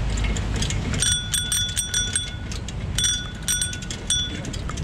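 Bicycle bell rung in two quick runs of about six rings each, about a second in and again about three seconds in, warning pedestrians on the path ahead. Low wind and road rumble run underneath.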